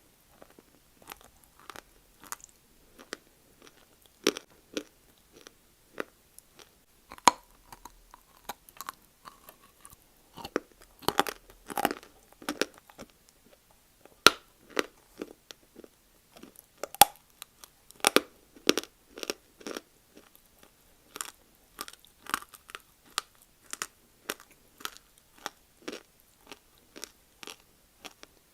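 Pieces of multani mitti (fuller's earth clay) being bitten and chewed close to the microphone: an irregular run of crisp cracks and crunches, a few sharp snaps standing out above the steady crunching.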